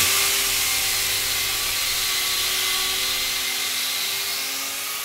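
Handheld power sander with a soft foam pad sanding a foam surfboard blank: a steady motor whir under a loud, even hiss of abrasive on foam, slowly easing off in level.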